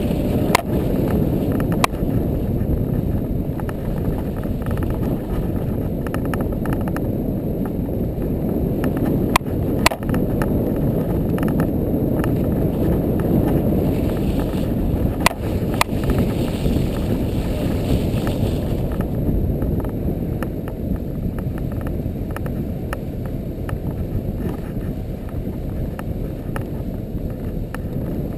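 ATV driving through deep snow, its engine and the churning snow heard as a muffled, low, steady rumble, with a few sharp knocks.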